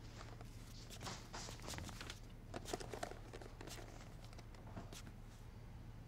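Quiet room tone with a low steady hum, broken by faint scattered rustles and soft taps of people moving about and handling things.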